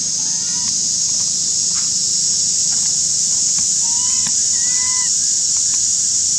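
Steady high-pitched drone of forest insects, with short squeaky coos that rise and fall from an infant macaque: one just after the start and three in quick succession about four to five seconds in.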